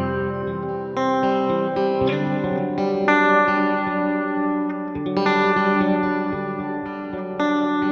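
Clean-toned electric guitar, a Fender Stratocaster through a Logic Pro X stock amp plugin, fingerpicked in a slow melodic line: notes and chord shapes plucked about once a second and left to ring into each other, with a fuller chord struck about five seconds in and again near the end.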